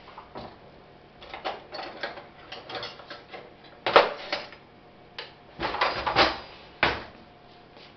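Omelette frying in a pan under a glass lid: irregular pops and crackles of spitting fat, with the loudest pops about four seconds in and a burst of crackling around six seconds.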